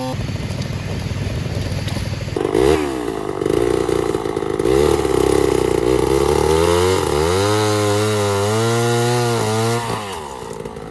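Chainsaw engine running at a low, pulsing idle, then revved hard about two seconds in. Its pitch rises and dips again and again before it drops back near the end.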